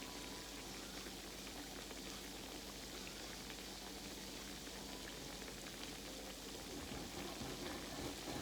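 Croquettes frying in hot oil: a steady sizzle with many small crackles.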